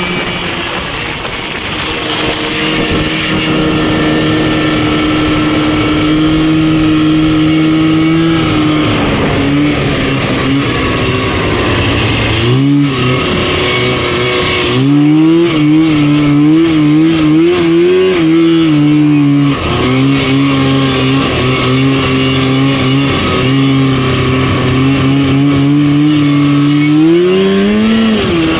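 Rotax 503 two-stroke twin engine of a Lynx snowmobile running hard at high revs, its pitch holding steady, dipping briefly twice and climbing again, then rising near the end.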